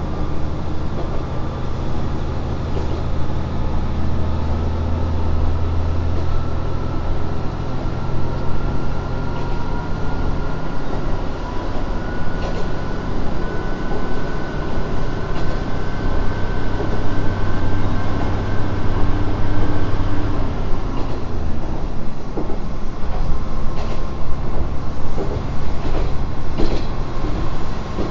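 Kanto Railway KiHa 5000 diesel railcar heard from on board while accelerating. A low engine drone runs together with a thin whine that slowly rises in pitch. About twenty seconds in, the engine note and the whine drop away, and the car runs on with rolling noise and a few sharp clicks from the rails near the end.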